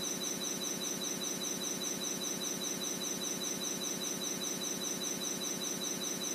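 Crickets chirping in a steady, even pulsing with two thin high tones.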